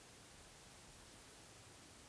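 Near silence: a faint, steady hiss of a still night with no distinct sound events.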